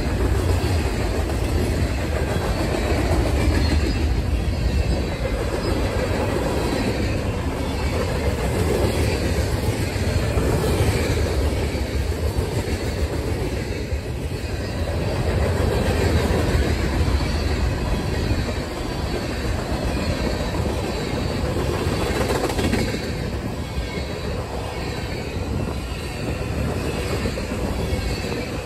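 Mixed freight train rolling past: covered hoppers, a gondola and tank cars, their steel wheels running steadily over the rails.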